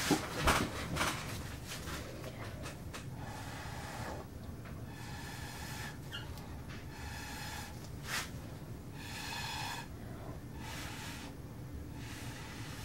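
A few sharp knocks of handling at the start, then a person blowing out air in short breathy gusts, about one every two seconds, as when blowing across wet resin to push it.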